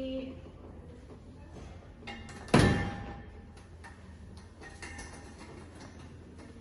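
Light irregular ticking and clicking, with one loud hit about two and a half seconds in that rings out for about half a second.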